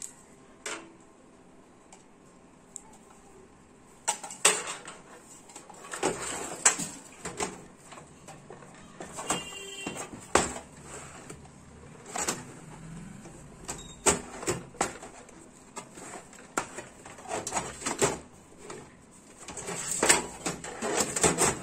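An SMPS power supply unit being pushed and slid into a steel computer cabinet: quiet at first, then, about four seconds in, a run of irregular metal knocks, clicks and short scrapes.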